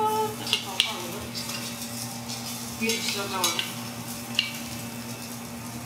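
Breaded salmon patties sizzling in a hot frying pan, with a few sharp clicks and scrapes of a spatula against the pan.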